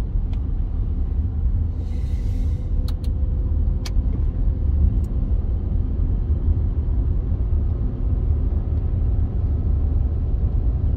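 Steady low rumble of a car's engine and tyres, heard from inside the cabin while it drives slowly in motorway traffic. A few light clicks and a short hiss come about two to four seconds in.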